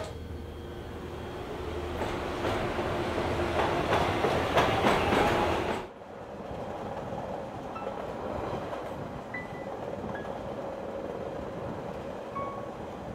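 Train clattering and rattling, growing louder, then cutting off sharply about six seconds in. After that, the quieter steady running noise inside a train carriage, with a faint hum and a few short high notes.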